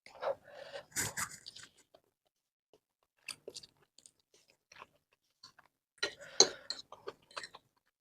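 Close-miked eating sounds of a person chewing 2x spicy stir-fried noodles: wet, clicky mouth noises in two busy spells, near the start and again about six seconds in, with scattered small clicks between.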